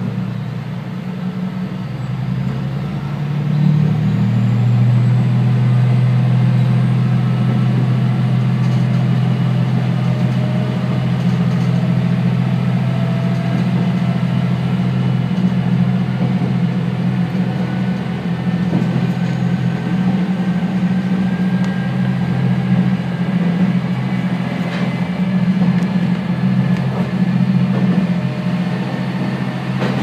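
Diesel railcar running under power, heard from on board: a steady engine drone that grows louder about three seconds in, with a faint whine slowly rising in pitch as the train runs through a tunnel.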